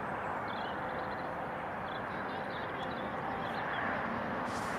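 Steady jet airliner noise, an even rush without changes, with faint high bird chirps over it.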